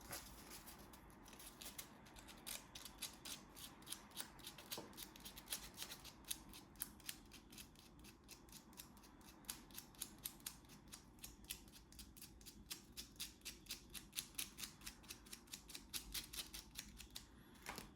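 Sandpaper rubbed back and forth over solder dots on the brake light switch's copper contacts to smooth them: a long run of faint, short scratching strokes, a few a second.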